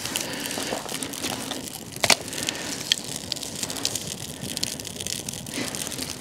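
Freshly lit birch bark and resinous spruce or fir twigs catching in a Firebox stove, crackling and popping steadily, with one louder snap about two seconds in.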